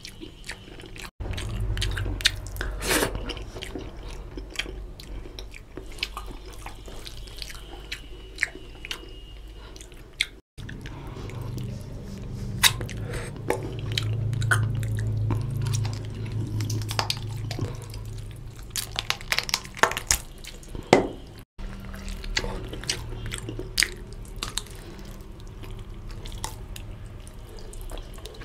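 Close-miked eating by hand: wet chewing, lip-smacking and sucking on oily mutton curry and rice, with biting at a curry-soaked mutton leg piece. Three very brief silent gaps break it up.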